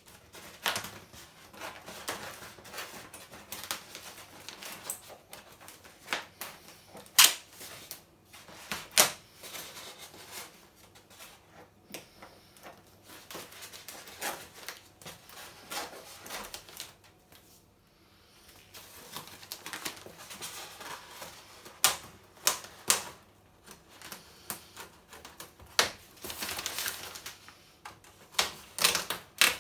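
A large appliance's packaging being opened by hand: irregular sharp clicks, taps and knocks, with stretches of rustling, as the tumble dryer is unpacked from its box and wrapping.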